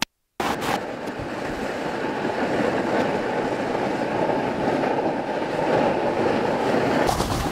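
A snowboard sliding over packed snow: a steady rumbling scrape that starts about half a second in, after a brief silence.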